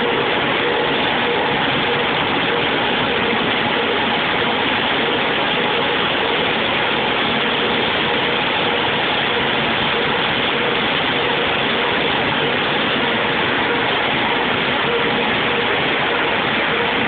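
Machinery running steadily: a loud, even mechanical noise with a faint steady hum through it.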